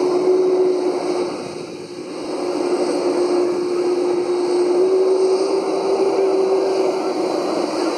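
Airliner engines running, a steady drone with one held tone, dipping briefly in loudness about two seconds in.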